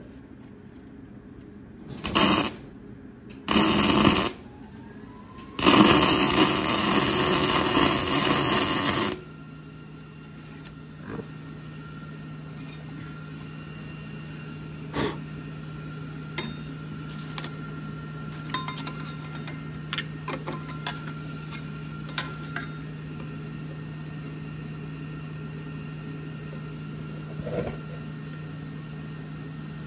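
Arc welding on a truck frame: two short bursts of crackling, then a longer bead of about three and a half seconds, run with the welder turned down to avoid melting through. After the welding stops, a steady low hum with scattered faint ticks.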